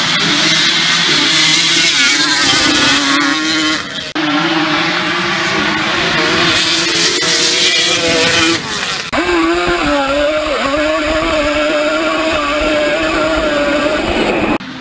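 Yamaha Banshee ATVs' twin-cylinder two-stroke engines revving hard as several quads accelerate across grass in drag races. The sound breaks abruptly about 4 and 9 seconds in. After the second break, one quad's engine is heard up close, holding a steady high-revving note.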